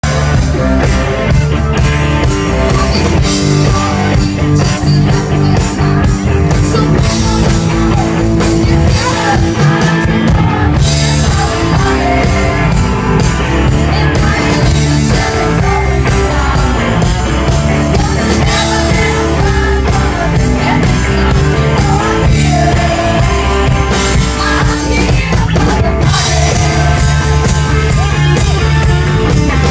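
Country-rock band playing loudly with a singer, electric guitar and drum kit.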